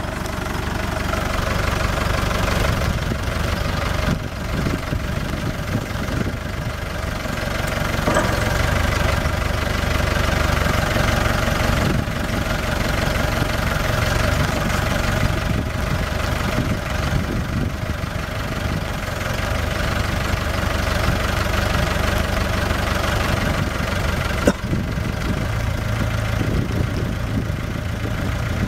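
2000 New Holland TL80 tractor's 238.6 cubic-inch diesel engine running steadily, with its front Sweepster hydraulic broom turning and brushing over gravel. One sharp click late on.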